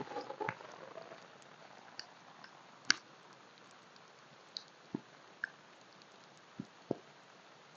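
Scattered water drops tapping one by one over a faint hiss: about eight separate drips, the loudest about three seconds in.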